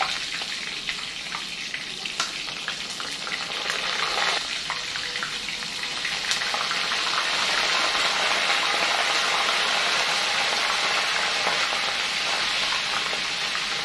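Oil sizzling steadily in a frying pan on a gas hob, with light clicks and scrapes of spoons stirring in the pots during the first few seconds. The sizzle grows louder about six seconds in.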